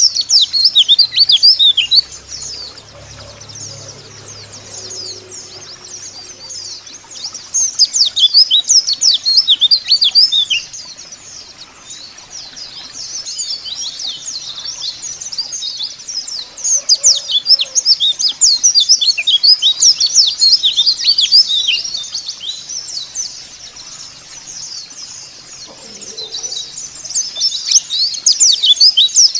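White-eye (pleci) twittering song: rapid, high-pitched strings of chirps and quick down-slurred notes, coming in loud spells of a few seconds about four times, with softer twittering in between.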